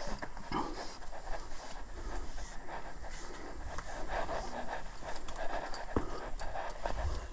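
A climber breathing hard while scrambling up rock, with rustling and a sharp click of climbing gear about six seconds in.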